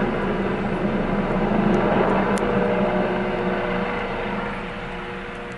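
Air ambulance helicopter's turbine and rotor running steadily as it flies away, fading over the last second or two.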